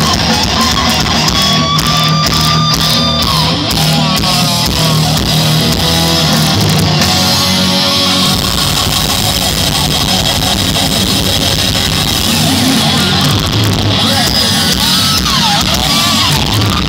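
Thrash metal band playing live through a concert PA, heard from the crowd: loud, heavily distorted electric guitar over drums and bass.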